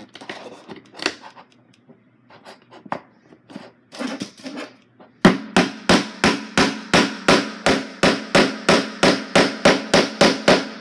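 Hammer driving small nails into a wooden kit piece: a few scattered light taps, then from about five seconds in a steady run of sharp strikes, about three or four a second.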